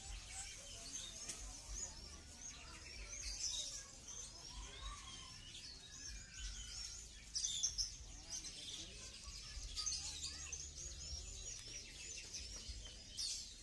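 Many caged songbirds chirping at once, a dense chorus of short high calls with a few louder bursts.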